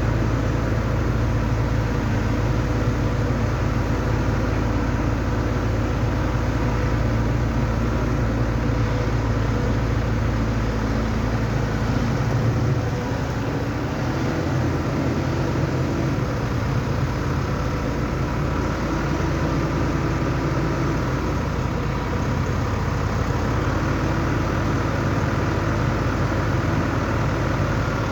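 Excavator's diesel engine running steadily, with a higher tone coming in several times for a few seconds each as the machine works.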